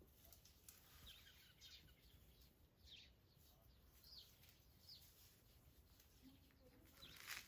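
Near silence, with a few faint, scattered bird chirps.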